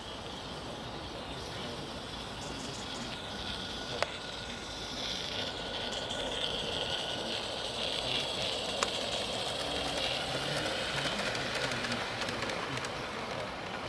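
Small 16mm-scale live-steam garden railway locomotive running with its train, giving a steady hiss that grows louder from about five seconds in. Two short sharp clicks sound partway through.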